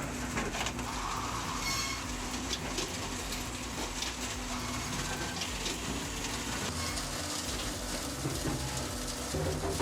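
Wood-splitting machine running: a steady mechanical hum with irregular knocks and clatter.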